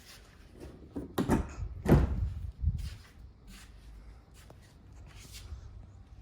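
A series of knocks and clunks, the loudest about two seconds in, followed by a few lighter clicks.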